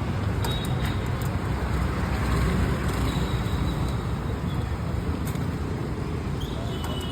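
Steady road traffic noise, a low rumble with a few faint clicks.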